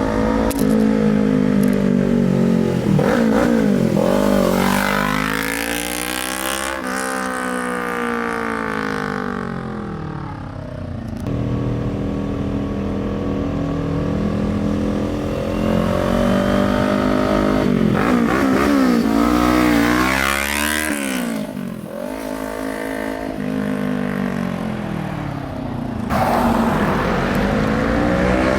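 Kawasaki Ninja 400's parallel-twin engine through an aftermarket exhaust, its pitch rising and falling again and again as the engine is revved up and eased off.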